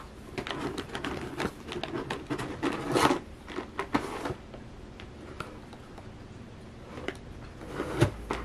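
Cardboard box and paper packaging rustling and scraping as a cat roots inside an opened parcel with its head, in quick irregular clicks and crinkles, busiest in the first few seconds. A sharp click near the end.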